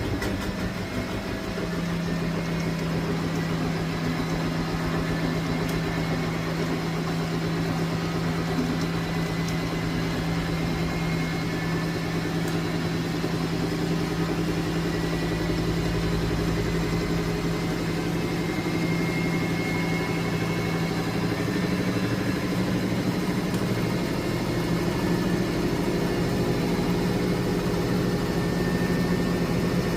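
Miele De Luxe W423 front-loading washing machine running with a steady motor hum and drum drone. It grows slightly louder in the last third.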